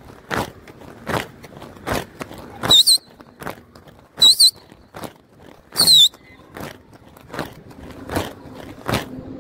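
Three short, shrill whistles about a second and a half apart, each with a warbling rise and fall: whistled calls to a flock of pigeons in flight. Under them runs a steady series of sharp clicks, a little more than one a second.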